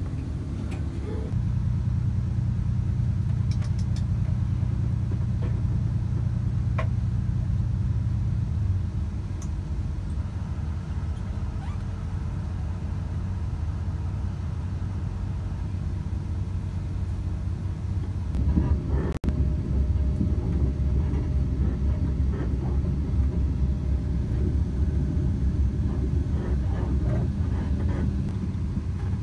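Steady low rumble of an NSW TrainLink Xplorer diesel railcar under way, heard inside the passenger cabin: engine and running gear as the train pulls out of the station. It grows louder about a second in, eases a little near the middle, and picks up again later, with a very brief drop-out about two-thirds of the way through.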